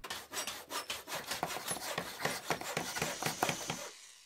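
Pencil scratching across paper in rapid short strokes, as in quick sketching, fading away near the end.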